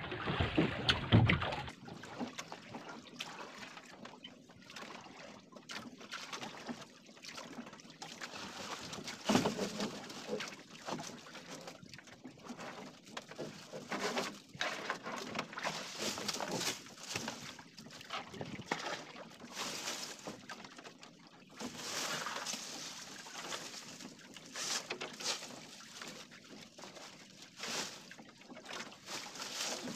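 Water sloshing and lapping against an outrigger boat's hull in irregular splashes, with occasional short knocks.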